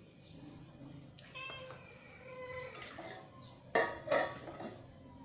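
A few short pitched calls from an animal, then two loud clattering knocks about three and a half seconds in.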